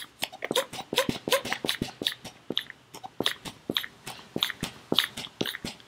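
Pistol-grip hand pressure pump being squeezed over and over, its handle and valves giving a quick, uneven run of clicks with each stroke as it pressurises an outboard gearbox toward 10 psi for a seal leak test.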